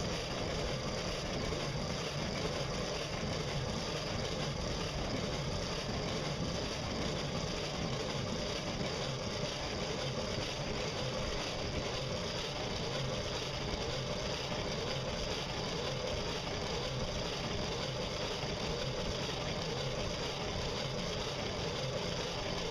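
Steady running noise of a solar- and pedal-powered boat under way, a constant hum with no gasoline engine.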